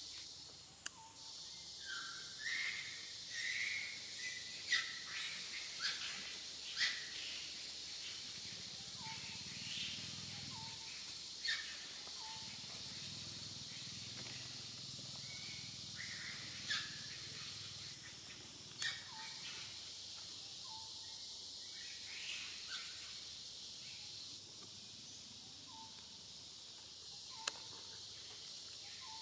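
Outdoor woodland ambience: a steady high hiss with short chirps in the first few seconds and sharp ticks now and then, louder around five to seven seconds in and near the end.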